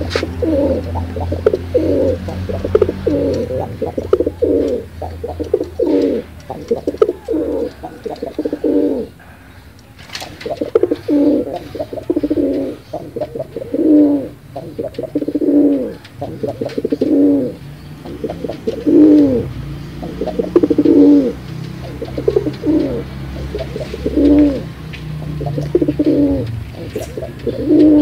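Domestic pigeons cooing over and over, one low swooping coo phrase following another about every second, with a short pause about a third of the way in.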